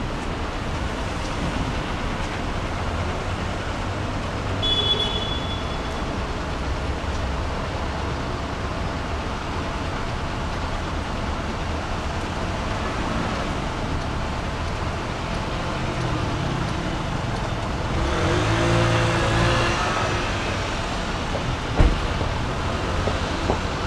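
Steady hum of distant road traffic, with one vehicle passing louder between about 18 and 20 seconds in. A brief high squeal comes about five seconds in, and a single sharp knock comes near the end.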